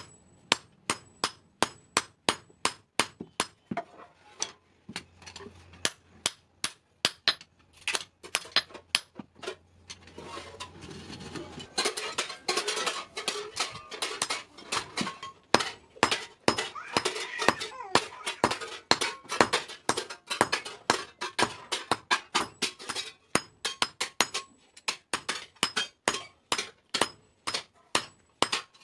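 Hand hammer striking hot iron on an anvil, a steady run of ringing metal blows about two to three a second while a scissors blade is forged. A rushing noise runs under the blows through the middle stretch.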